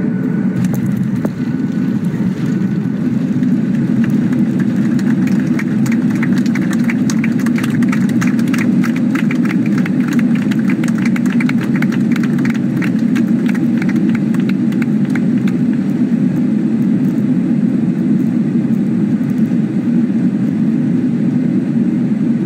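Steady low rumble inside the cabin of a Boeing jet airliner during its landing roll on the runway, recorded at a window over the engine. For several seconds in the middle, a fast patter of sharp clicks rises over it.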